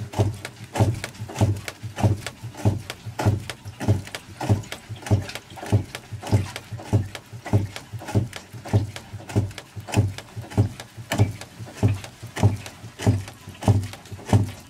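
The rear suspension strut of a VAZ-2110 knocking over and over as the rear of the car is worked up and down, a heavy dull thud about every half second carried into the body. The strut is leaking, with oil running out of it, which is taken for the cause of the knock.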